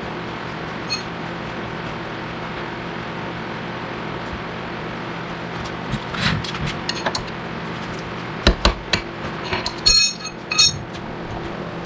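Metal hand tools clinking and knocking on steel suspension parts while the wishbone suspension bolts are loosened, with a few sharp ringing metallic clanks in the second half, over a steady low hum.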